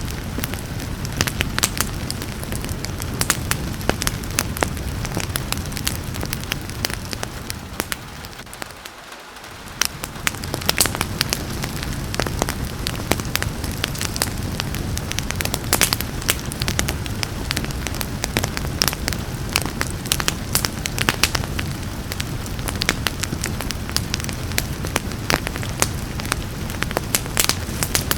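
Wood fire crackling with frequent sharp pops and snaps over a steady hiss of rain. The whole sound dips down briefly about nine seconds in, then comes back.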